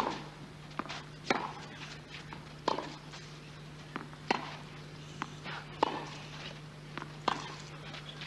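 Tennis ball struck back and forth by rackets in a baseline rally on clay. Sharp hits come about every second and a half, with fainter ticks of the ball bouncing between them.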